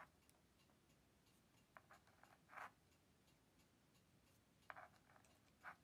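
Near silence, with a few faint scrapes and light clicks as yarn loops are slipped by hand onto a Tunisian crochet hook.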